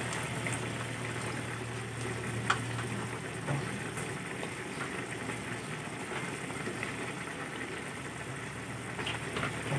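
Pork adobo braising liquid boiling in an uncovered frying pan, a steady bubbling and sizzling. A low hum runs under it for the first few seconds, and there is one sharp click about two and a half seconds in.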